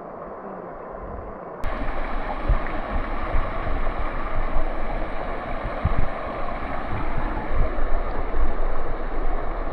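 Water rushing and gurgling over rocks in a creek cascade, with wind buffeting the microphone in gusts. The sound jumps louder about a second and a half in.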